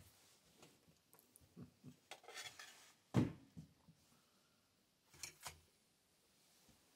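Scattered clinks and knocks of enamel plates and metal cutlery being handled while food is served, with one louder knock about three seconds in.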